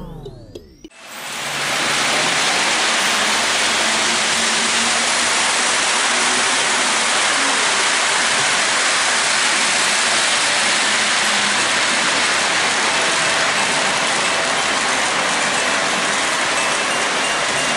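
Model train running on its track around the layout: a steady rushing rumble of wheels and motor that starts about a second in.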